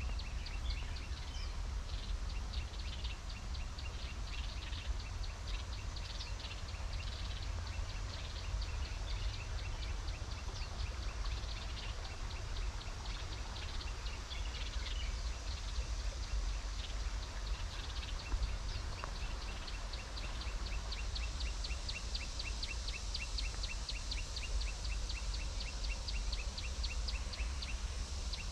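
Garden ambience: birds chirping, with a fast, even high-pitched chirp repeating about five times a second over a steady low rumble. The scattered chirps thin out in the second half, while the even chirping runs on.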